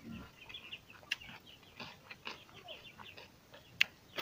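Close-up mouth sounds of a man chewing roast pork, with sharp wet smacking clicks about a second in and, loudest, near the end; birds chirp in the background.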